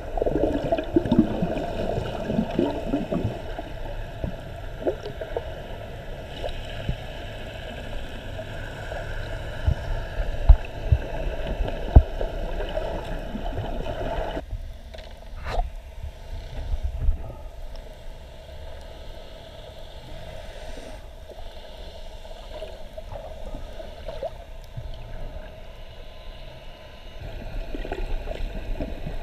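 Water heard underwater: a muffled rushing and gurgling with a few sharp knocks, turning quieter and duller about halfway through, then swelling again near the end.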